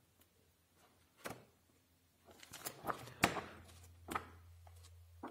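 Paper pages of a thick book being flipped by hand: a few short crisp page snaps and rustles, one about a second in, a quick cluster in the middle and another near the end.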